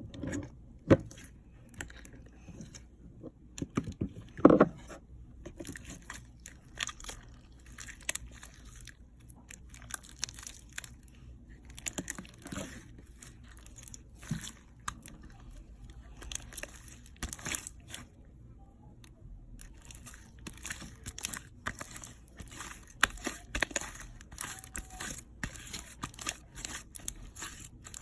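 Slime being squished and stretched by hand: irregular sticky clicks and crackles, with a louder squelch about four and a half seconds in.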